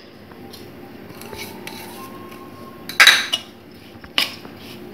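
Steel spoon scraping and clinking against a stainless-steel bowl as steamed ragi vermicelli is tossed with grated coconut. There is a louder clatter about three seconds in and a sharp click a second later.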